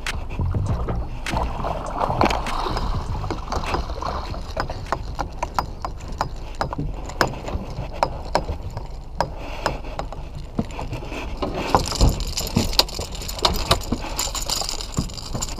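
Sea water splashing and lapping against a small fishing boat's hull over a low steady rumble, with frequent sharp clicks and knocks from tackle and gear on board. The splashing grows stronger about a second in and again near the end.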